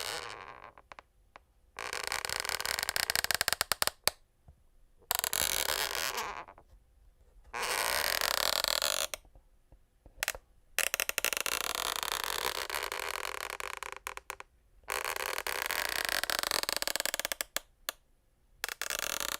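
Wooden parquet floorboards creaking: about six long, drawn-out creaks, each a second to four seconds long, with short pauses between them.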